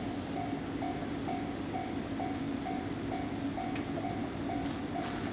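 Japanese level-crossing warning bell ringing at an even beat of about two strikes a second, over a steady low rumble.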